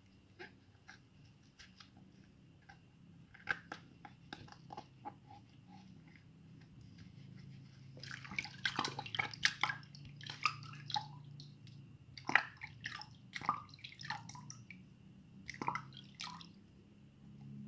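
Water dripping and splashing with irregular clicks and taps, busiest from about eight seconds in, over a faint low steady hum.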